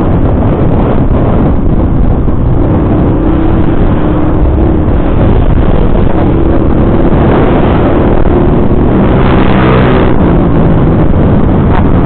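Motorcycle riding at road speed: heavy wind rush on the mic over the engine, whose tone shifts in pitch through the middle as it speeds up and eases off.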